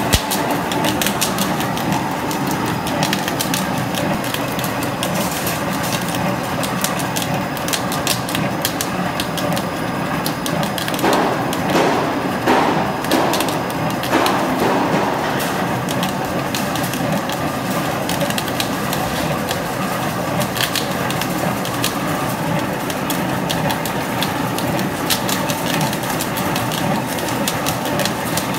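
Pile reinforcement-cage welding machine running on a test run: a steady machine noise with dense, rapid crackling clicks, growing louder for a few seconds around the middle.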